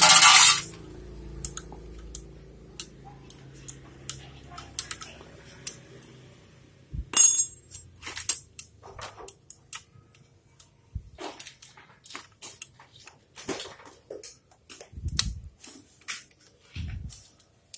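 Hand tools clicking and clinking against a motorcycle engine's cylinder head as the valve-clearance inspection caps are worked loose: scattered sharp metallic clicks, a loud clatter at the start, a ringing clink about seven seconds in and a few dull knocks near the end.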